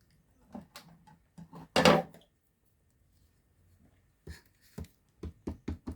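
Light knocks and handling of stamping tools on a craft table, one louder knock about two seconds in. Near the end comes a quick, even run of small taps, about five a second: an ink pad being dabbed onto a stamp to ink it.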